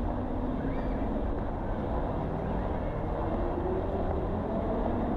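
Steady outdoor street ambience: a low rumble of motor traffic, with one engine's tone rising slowly partway through.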